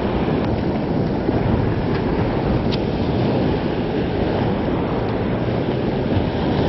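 Small surf waves breaking and washing up the sand at the water's edge, with wind buffeting the microphone as a steady rumbling rush.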